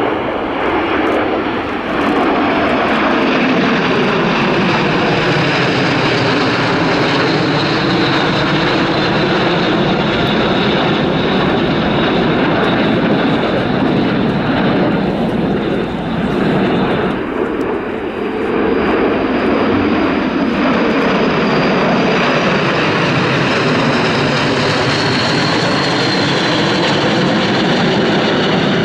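Jet engines of a formation of Aero L-39 Albatros jet trainers flying past, a loud continuous roar. A sweeping tone in it falls during the first few seconds and rises again near the end, and the roar dips briefly around the middle.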